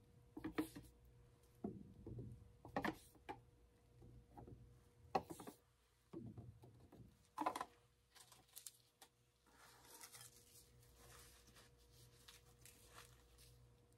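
Quiet handling noises from acrylic pour painting: scattered light taps and clicks of paint cups and tools, with a brief soft hiss about ten seconds in.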